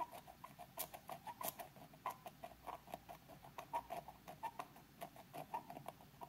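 X-Acto knife blade scraping the solder mask off a copper trace on a circuit board: faint, irregular little scratches and ticks, several a second.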